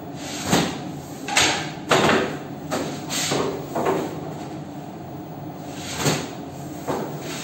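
Long wooden bread peel scraping and knocking on a deck oven's floor and the loaves sliding off it into a wire cart: a series of short sliding scrapes and knocks over a steady machine hum.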